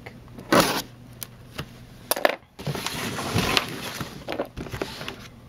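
A knife slicing packing tape on a cardboard box, then the box scraping and knocking as it is turned over on a wooden table, with scattered clicks and rustles.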